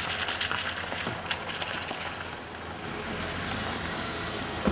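Honda CR-V SUV driving slowly over a gravel dirt track, its tyres crunching and crackling on loose stones over a low steady engine hum. The crunching is densest in the first second or so, and there is one sharp knock at the very end.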